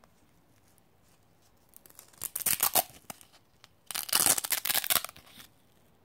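Hook-and-loop (Velcro) backing of a PVC morale patch being peeled off a loop panel: two ripping pulls, the second longer.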